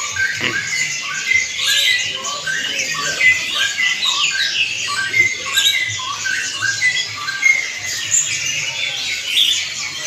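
A chorus of many caged songbirds chirping and whistling at once, a dense, unbroken tangle of short overlapping calls.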